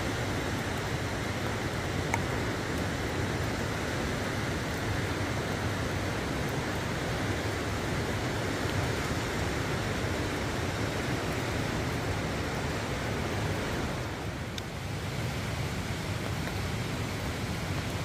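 Steady rain falling, a dense even hiss, briefly softer about fourteen seconds in.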